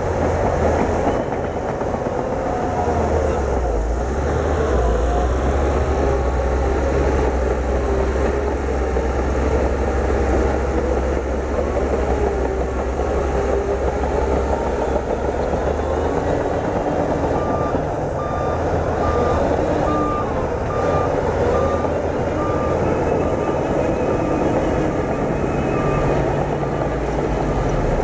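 Bulldozer's diesel engine running under load, its tracks clanking as it pushes wet soil. From a little past halfway a reversing alarm beeps steadily until near the end.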